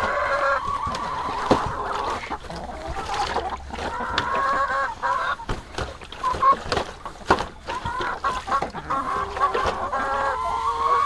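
Laying hens clucking again and again, with scattered sharp clicks and knocks throughout.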